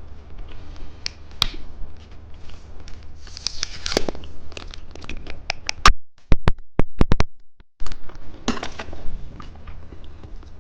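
Plastic candy wrapper being crinkled and torn open by hand, with a quick run of sharp clicks about six seconds in.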